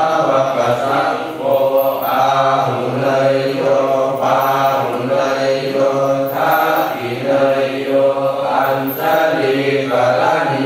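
Thai Buddhist chanting in Pali, voices reciting in a steady, even monotone. The phrases follow one another about once a second without pause.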